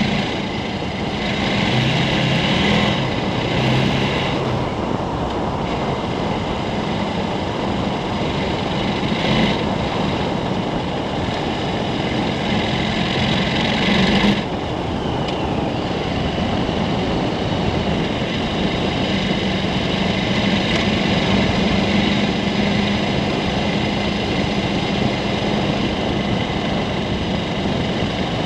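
KTM 1290 Super Adventure's V-twin engine running while riding on a gravel road, mixed with wind rush and tyre-on-gravel noise. The engine note and overall level drop suddenly about halfway through.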